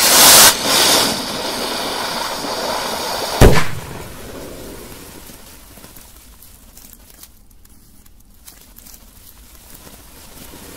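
Buried firework rocket firing: a loud rushing hiss as its motor blasts smoke up out of the ground, settling into a steady hiss, then one sharp bang about three and a half seconds in.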